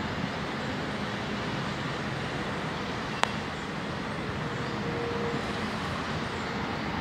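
Steady highway traffic noise, with a single sharp click about three seconds in.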